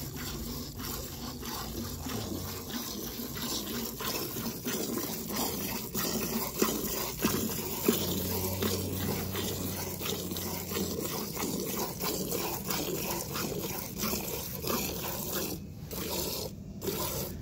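A cow being milked by hand: streams of milk squirt into a galvanized metal pail with each pull, splashing into the milk already in it in a repeated rhythm.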